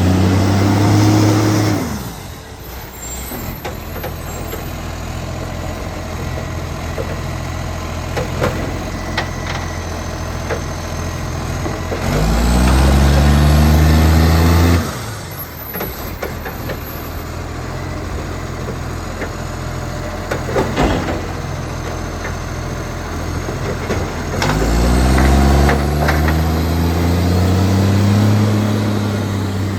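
Autocar side-loader garbage truck engine, which has an exhaust leak, revving up and holding high three times with idling in between. A few sharp knocks and clanks come during the idle spells.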